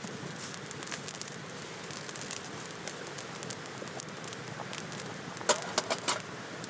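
Wood campfire crackling: a steady hiss with many small pops, and a quick run of louder sharp snaps about five and a half seconds in.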